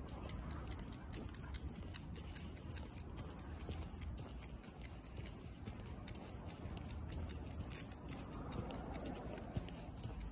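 Footsteps on asphalt while walking an American Cocker Spaniel on a leash: rapid light ticks and patter over a steady low rumble.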